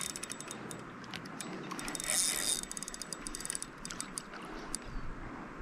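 Fishing reel clicking as a hooked, strong rainbow trout pulls line against the drag: rapid runs of clicks right at the start and again about two seconds in, with scattered single clicks between.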